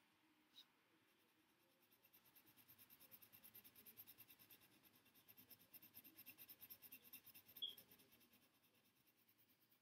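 Faint scratching of a graphite pencil shading heavily on paper, fast back-and-forth strokes several times a second, building up about two seconds in and easing off near the end. A single click comes just after the start, and a short high squeak about three-quarters of the way through.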